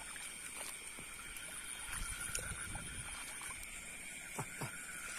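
Water sloshing and splashing around the legs of someone wading slowly through a shallow flooded rice paddy, under a steady chorus of night insects trilling at several high pitches. Two short downward-sliding calls come near the end.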